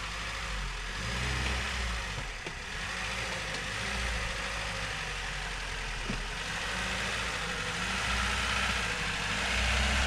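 Lada Niva's four-cylinder engine running at low revs as the car is eased along a broken, washed-out dirt road, getting louder near the end.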